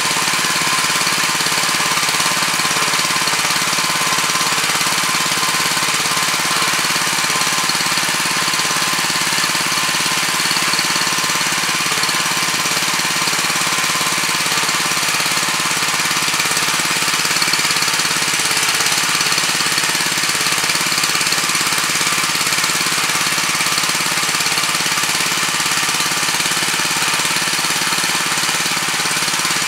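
Weima WM 900 walk-behind tiller's 7 hp engine running steadily under load while its rotary tines work hard, compacted soil.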